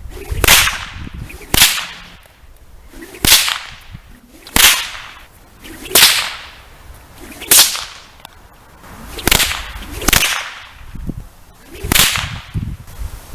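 A whip being swung and cracked nine times, about one to two seconds apart. Each stroke is a short swish ending in a sharp crack.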